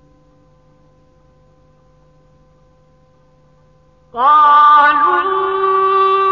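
Faint steady hum of an old tape recording in a pause, then about four seconds in a man's voice enters loudly in melodic Quran recitation, holding a long note that slides up into a higher sustained pitch.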